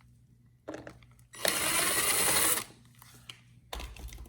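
A tool runs in a mechanical burst of about a second, loosening the air filter cover on a Briggs & Stratton Quantum lawn mower engine. A click comes just before it and a low thump near the end.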